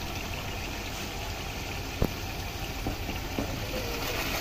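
Chicken frying in a large aluminium pot over a gas flame: a steady low rumble with a sizzle on top. A wooden spoon knocks sharply against the pot about two seconds in, followed by a few lighter taps.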